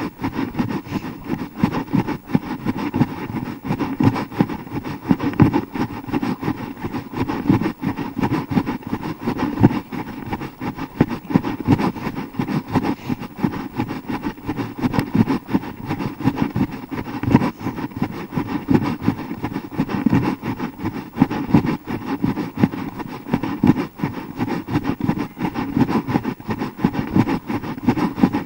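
Wind buffeting and handling noise on a hand-held action camera's microphone during a run: a steady, fluttering low rumble.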